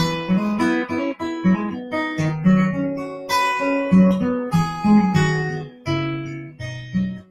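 Acoustic guitar played solo, an instrumental break between verses: picked notes struck a few times a second over a moving bass line, with no voice.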